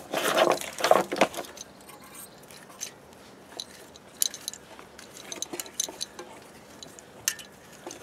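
Scattered small clicks and taps from a water pump's pressure switch being turned off its pressure-tube fitting and handled. A brief louder rush of noise comes in the first second and a half.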